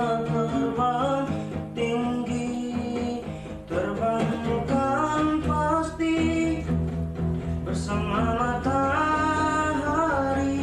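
A singer singing a melodic song over guitar accompaniment, holding notes with vibrato.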